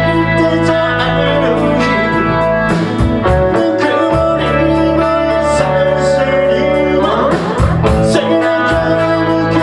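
Live rock band playing loudly: electric guitar chords over bass and drums keeping a steady beat, with a voice singing.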